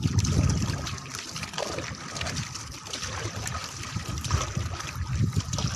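Seawater splashing and trickling along the hull of a small outrigger boat (bangka) as it moves through light chop, with a low rumble underneath.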